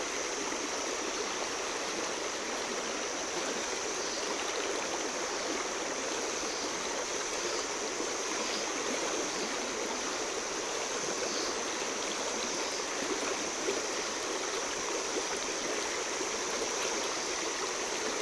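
Shallow, fast river running steadily over a stony riffle: an even rush of water.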